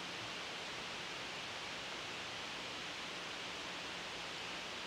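Steady, even hiss of background noise with no distinct events. The strokes of the silicone pastry brush make no sound that stands out.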